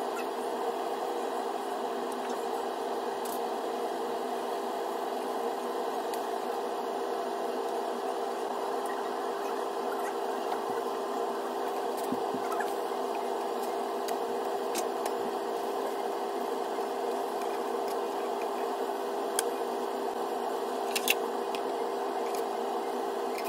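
Steady whirring noise with a constant low hum while pancakes cook in a non-stick frying pan, with a couple of faint clicks near the end.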